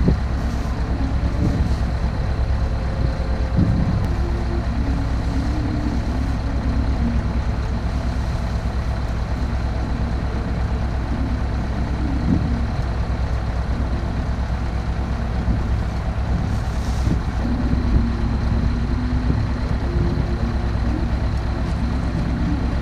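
Compact excavator's diesel engine running steadily under load, its note wavering up and down as the hydraulics work, with a few brief knocks.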